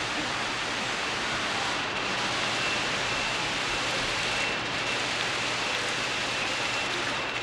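Torrential hurricane rain pouring onto trees and foliage, with wind in the trees: a steady, even rush.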